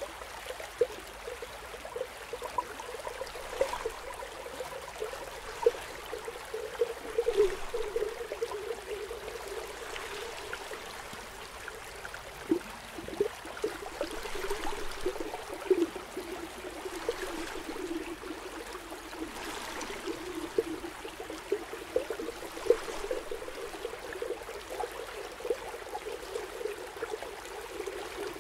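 Aquarium water bubbling and trickling steadily, with a constant stream of small gurgles and pops.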